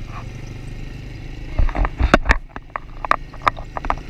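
Quad bike engine running with a steady low rumble as it rides. From about a second and a half in, a run of sharp knocks and thumps cuts across it, the loudest about two seconds in.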